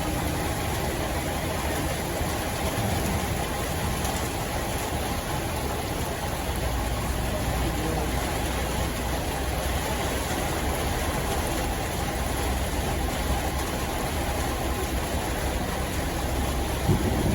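Steady rumble of large diesel tour-bus engines idling, growing a little heavier in the low end about six seconds in.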